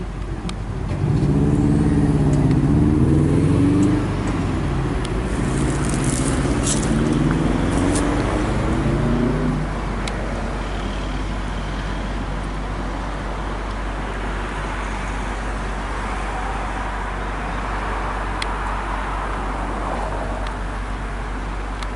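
A road vehicle accelerating past, its engine rising in pitch, dropping at a gear change about four seconds in and rising again. It fades to steady traffic noise after about ten seconds.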